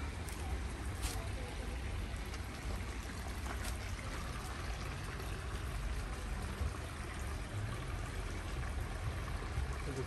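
Small stream trickling steadily, under a steady low rumble, with a couple of faint clicks about a second in and near four seconds in.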